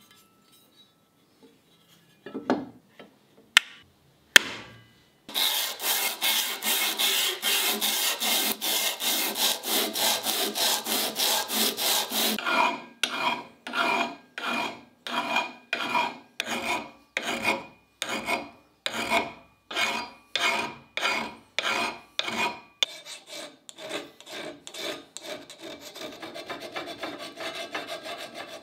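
Hand file rasping back and forth across the steel blade of an antique Foster Bros. hog splitter cleaver. After a few handling clicks it starts with rapid strokes, moves to steady strokes a little over one a second, and near the end gives softer, quicker strokes.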